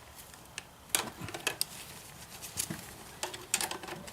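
Scattered light metallic clicks and taps of wrenches working on a small bike's chain adjuster nuts, about half a dozen sharp ticks with quiet between them.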